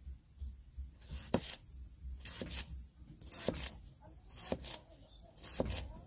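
Victorinox Trailmaster pocketknife blade slicing through the white stalk of a large green onion, five cuts about one a second, each a crisp crunch ending in a tap of the blade on the cutting board.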